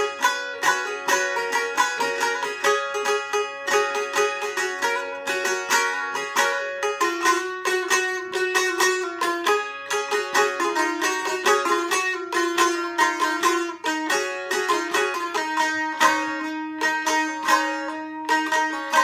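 Bağlama (Turkish long-necked saz) played solo: a quick, continuous run of plucked notes over a steady held note beneath, the instrumental introduction before the song's first verse.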